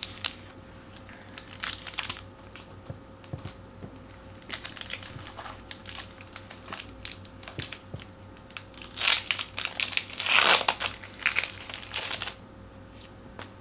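Foil wrapper of a Pokémon booster pack crinkling as it is handled and torn open, in scattered short rustles, with the loudest crinkling and tearing about nine to twelve seconds in.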